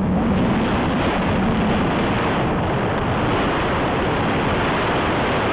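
Wind blowing on the microphone: a steady, loud rush with no let-up.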